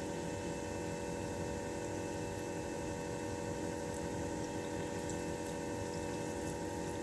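Khajoor pieces of maida dough deep-frying in oil on a slow flame: a steady, even sizzle of bubbling oil, with a constant hum underneath.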